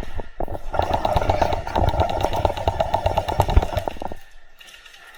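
Airsoft gun firing a long full-auto burst: a fast, even rattle of shots with a steady buzz under it, stopping about four seconds in.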